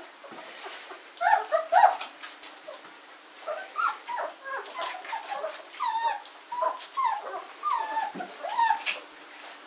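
Newborn German shorthaired pointer puppies squeaking and whimpering while rooting under their mother to nurse. A string of short, high cries that bend up and down, loudest about a second in and then coming steadily from about three and a half seconds until near the end.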